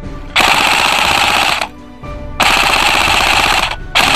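Rapid automatic fire in long bursts: two bursts of a little over a second each, then a third starting near the end, over background music.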